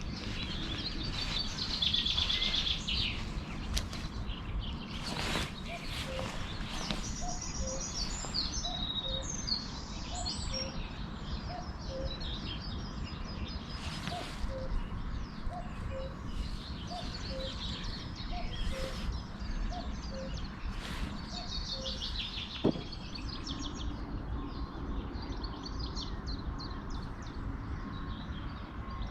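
Common cuckoo calling its falling two-note "cuck-oo" about a dozen times, roughly one call a second, from about six seconds in until about two-thirds through. Other songbirds chirp high above it over steady background noise, with one sharp click near the end.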